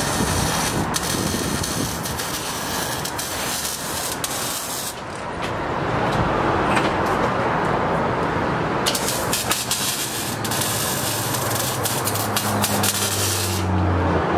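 Crackling, hissing bursts of welding on a Dodge Charger's exhaust pipe during a muffler install, switching on and off in two long spells. A low steady hum comes in near the end.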